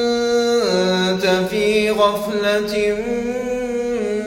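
A man's unaccompanied Quran recitation, the voice drawn out on long melodic held notes. The pitch steps down about half a second in and shifts again near the three-second mark.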